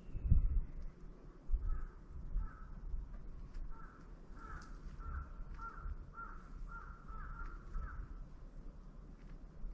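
A crow cawing faintly, a series of about ten short caws from about two seconds in until near the end. A low thump near the start.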